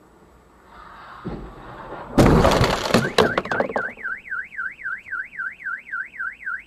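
Cars colliding: a loud crunching impact with clatter about two seconds in. About a second later a car alarm starts a fast rising-and-falling warble, about four sweeps a second.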